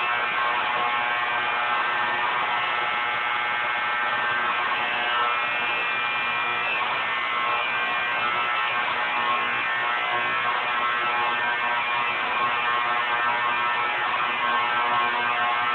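Building fire alarm sounding without a break: one steady, loud buzzing tone that does not pulse or pause.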